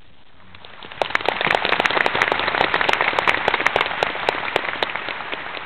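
A room full of people clapping: applause that swells about a second in, holds, then tapers off near the end.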